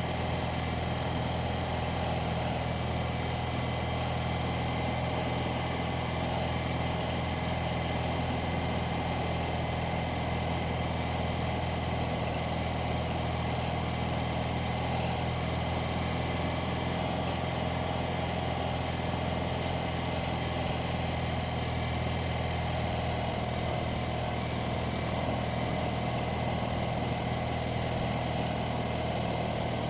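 1982 BMW 980cc air-cooled flat-twin motorcycle engine running steadily at an even, unchanging speed, close-miked on the bike.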